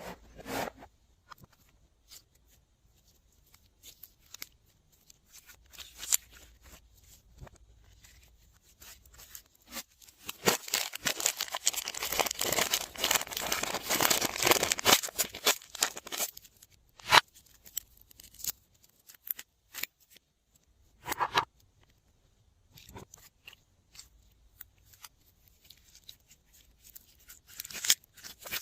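Glossy slime being squished and pulled by hand. It gives scattered sticky clicks and pops, with a dense run of crackling for several seconds in the middle.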